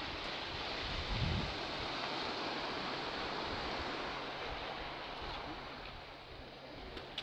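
Steady hiss of sea surf washing on the shore, with wind buffeting the microphone in a brief gust about a second in.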